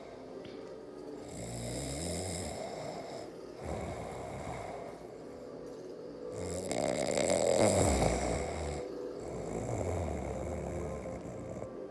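A sleeping man snoring: four slow snoring breaths, the third the longest and loudest.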